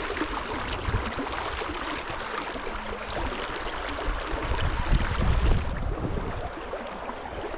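Fast river current rushing steadily over a gravel bar, with a low rumble surging up about four to six seconds in.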